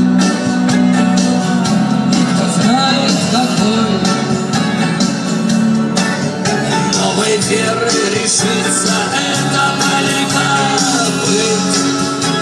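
Background music: a Russian-language song.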